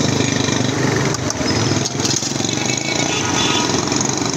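A motorcycle engine running close by amid street traffic, over the hiss of potatoes deep-frying in vats of oil. A couple of short metallic clicks come from the wire fry baskets.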